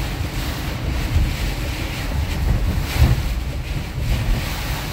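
Heavy rain lashing a moving van's windshield and body while strong wind buffets it: a steady rushing noise with a deep rumble that swells in gusts, and two brief louder thumps about a second in and three seconds in.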